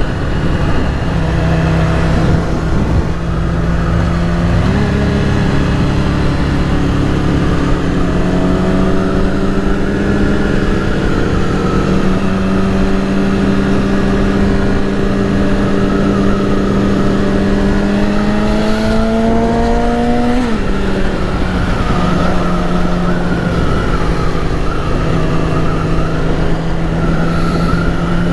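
Yamaha R6 inline-four engine running at steady cruising revs. About five seconds in its pitch steps up, then climbs slowly, and it drops back about twenty seconds in. Wind rushes over the microphone throughout.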